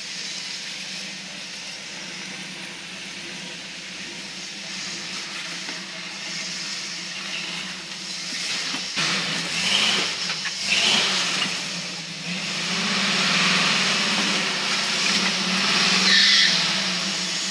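The 1969 Ford Bronco's engine running at low speed as the truck crawls over rock, louder in the second half, with a couple of short high squeals near the end.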